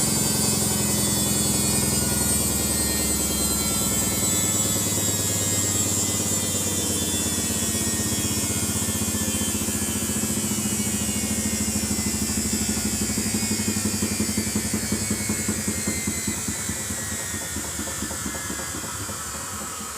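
Samsung washing machine's drum slowing down from a high-speed spin: the motor whine and hum fall slowly in pitch and the sound fades toward the end, with a quick pulsing about two thirds of the way through.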